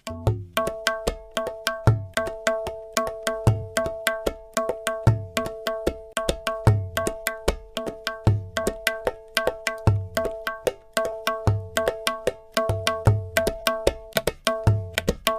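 Comedy music cue: rapid, even clicks over two steady held tones, with a low thump about every second and a half.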